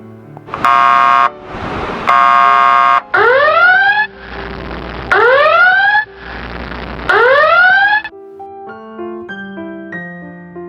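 Emergency siren sound effects: two short, flat horn blasts, then three quick rising whoop tones about two seconds apart, over background music. From about eight seconds in, only keyboard music is left.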